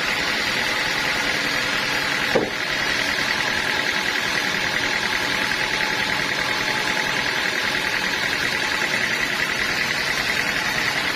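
Sawmill machinery running steadily with a constant engine drone, and a single sharp knock a little over two seconds in.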